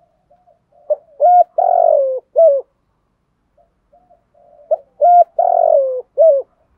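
Spotted dove cooing its song twice, about four seconds apart: each phrase is a quick note, a short coo, a long coo falling in pitch and a short closing coo. Faint soft coos run between the two phrases.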